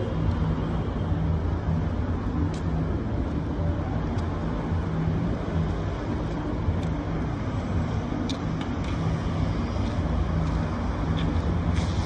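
Steady road traffic noise: a continuous low rumble of cars on a city avenue.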